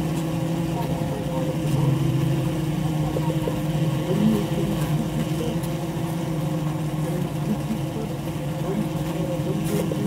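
Honeybee colony humming inside the hive, heard with the microphone among the bees on the comb: a steady low drone with brief wavering tones from individual bees passing close over it.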